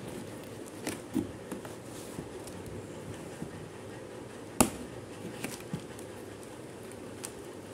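A paperboard shampoo carton being handled and its top flap pried open with a pen: scattered light taps and clicks, with one sharp click about halfway through.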